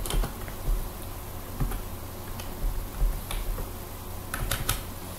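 Computer keyboard keys pressed a few times with pauses between presses, ending in a quick run of three clicks.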